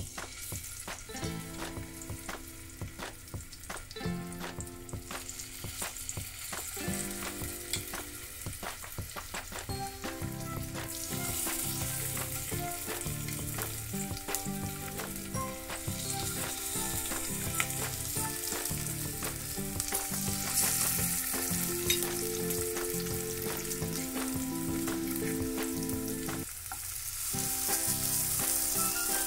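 Masala-coated fish sizzling as they shallow-fry in a little hot oil in a nonstick kadai, pieces laid in one after another with a spoon. The sizzle grows louder from about ten seconds in as more fish go into the pan.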